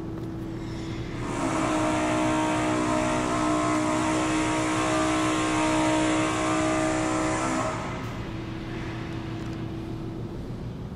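Loud airplane passing overhead. Its mix of engine whine and rushing noise swells in about a second in and fades away after about six and a half seconds, over a steady low hum.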